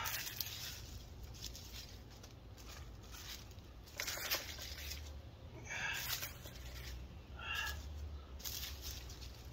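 Hands scraping and crumbling loose garden soil and rustling dry leaves in irregular bursts while backfilling around tomato plants. Two short high-pitched calls come about six and seven and a half seconds in.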